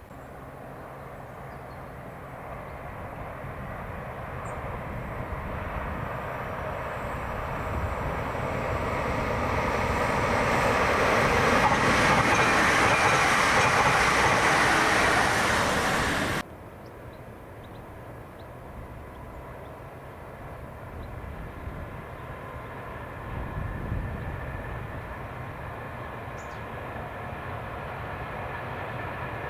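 A train approaching and passing close by, growing steadily louder to a loud pass, then cutting off abruptly about two thirds of the way in. After the cut, a quieter steady rumble of a train rolling by, swelling briefly near the end.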